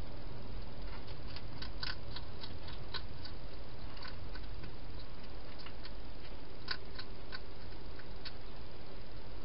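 Wild hedgehog eating from a bowl inside a plastic feeding box: irregular crisp clicks and crunches of chewing, in clusters, over a steady hiss.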